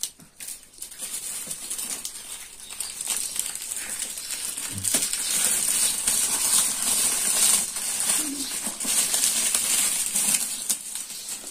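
Shiny metallic foil gift wrap crinkling and rustling as it is peeled back off a cardboard box, a dense run of small crackles.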